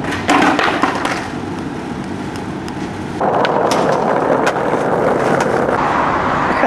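Skateboard wheels rolling on concrete, with sharp clacks and knocks of the board in the first second. The rolling gets louder and rougher about three seconds in.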